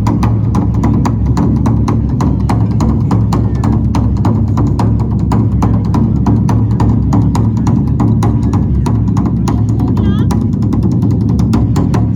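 Korean traditional military band drums playing a fast, even beat, with strikes several times a second over a steady low drone.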